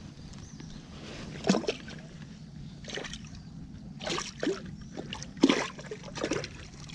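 A peacock bass splashing at the water's surface while held in a lip grip during its release: several short splashes, roughly one a second.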